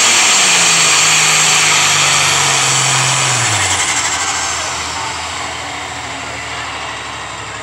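Diesel farm tractor at full throttle pulling a weight sled, its engine running hard. About three and a half seconds in the engine note drops in pitch and the sound grows quieter.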